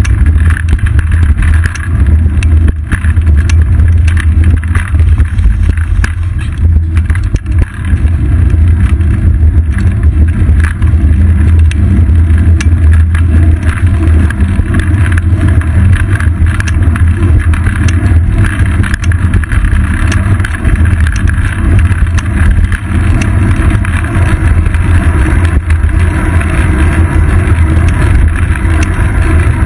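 Steady, loud low rumble of wind and road vibration picked up by a seat-post-mounted GoPro Hero 2 in its housing on a moving bicycle, with small knocks from bumps in the pavement throughout.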